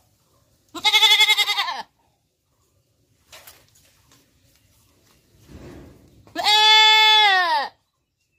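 Goat bleating twice: a trembling bleat about a second in, then a longer, steadier bleat near the end that drops in pitch as it stops.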